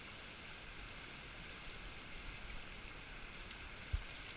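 Steady rush of the Truckee River flowing, with a short low thump near the end.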